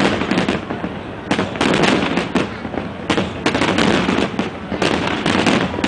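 Aerial fireworks bursting in quick succession: a dense, unbroken run of overlapping bangs and crackle.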